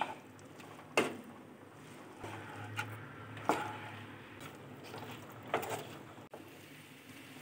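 A spatula stirring and turning raw plantain sticks in a nonstick pan, with a few sharp knocks of the spatula against the pan.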